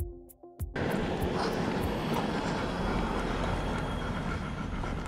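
Background music cuts off less than a second in, giving way to a steady, even rushing noise of open outdoor air.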